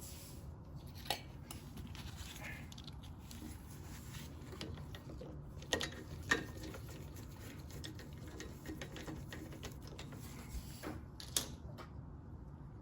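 Faint scattered clicks and light taps of small metal and plastic parts being handled while a mower carburetor and its fuel line are fitted, a few sharp clicks standing out about a second in, around six seconds in and near the end, over a low steady hum.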